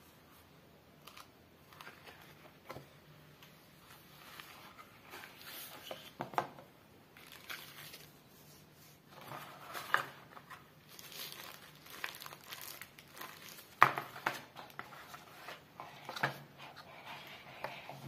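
Cardboard, paper and plastic phone packaging rustling and crinkling in the hands, with a few sharper clicks as the inner box and leaflet sleeve are handled. The loudest click comes about two-thirds of the way through.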